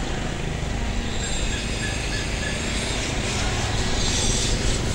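Steady outdoor traffic noise from passing vehicles, with a few faint short high tones about a second in.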